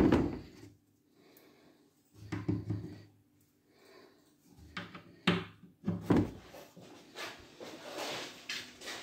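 Wooden knocks and taps: metal shelf pins being pushed into the holes of a pine bookcase's side panel, with the pine panels being handled. There are several separate knocks, the loudest at the start, and a rougher stretch of handling near the end.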